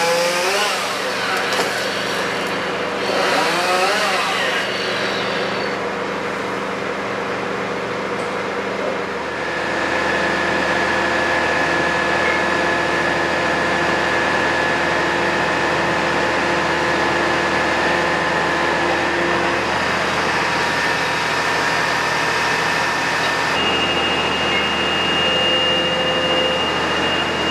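A chainsaw revving up and down twice as it cuts into a tree trunk, under the steady running of a fire-brigade turntable ladder truck's engine. A steady whine joins the engine hum about nine seconds in.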